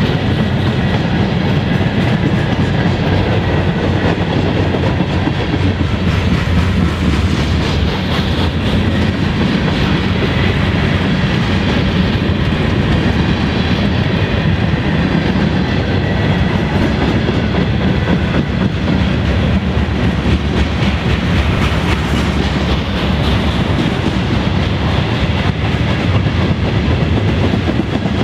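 Freight cars of a mixed freight train, open hoppers and tank cars, rolling past close by: a loud, steady rumble of steel wheels on the rails.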